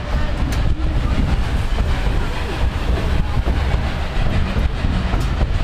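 Narrow-gauge railroad passenger car rolling along the track: a steady rumble of wheels on rail, with a few sharp clicks from the rail joints.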